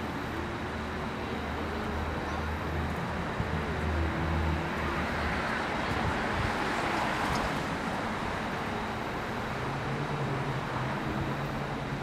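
Road traffic: a steady low engine hum, with a vehicle's passing noise swelling and fading about halfway through.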